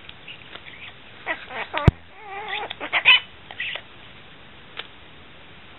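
Severe macaw making a few short squawks and wavering, warbling chatter calls, with a single sharp click a little before the halfway point.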